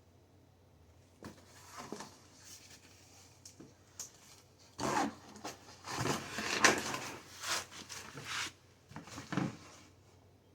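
Irregular handling noises: rubbing, rustling and light knocks of things being moved about, busiest and loudest around the middle.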